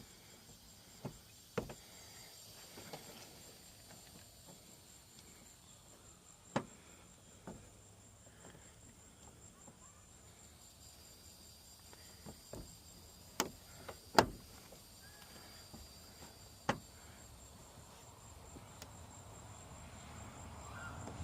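Scattered sharp clicks of a pick tool working at the small retaining clip behind a truck's door handle, the loudest about two-thirds of the way through, over steady insect chirping. A rising vehicle noise comes in near the end.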